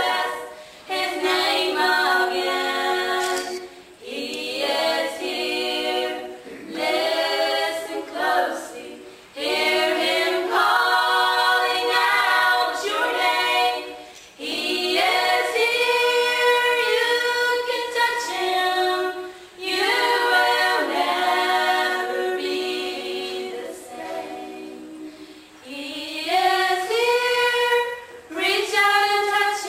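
Four teenage girls singing together a cappella, with no instruments, in sung phrases of a few seconds broken by short pauses for breath.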